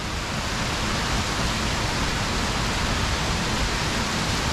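Steady rushing of a mountain river and waterfall, an even, unbroken wash of water noise.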